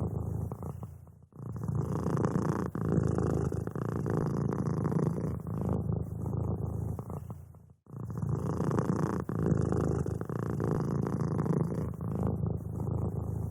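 Domestic cat purring steadily in a low rumble, broken by brief pauses about a second in and again about eight seconds in.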